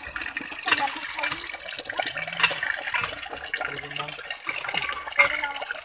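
Tap water pouring in a stream into a metal bowl of water while a hand sloshes and rinses whole fish in it, with a steady rush and small splashes.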